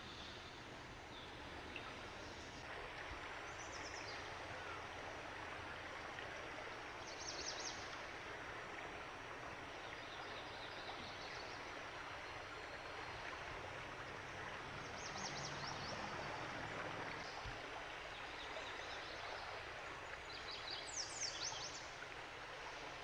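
Steady rush of flowing floodwater, with a songbird singing short high phrases several times over it, the loudest near the end.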